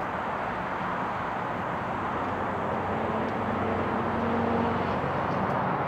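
Steady hum of road traffic, with a faint engine tone joining it about three seconds in and fading about a second and a half later.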